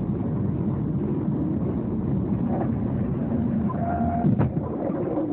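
Steady road and engine noise inside a moving car, with a short, sharp crash about four seconds in as a vehicle ahead overturns.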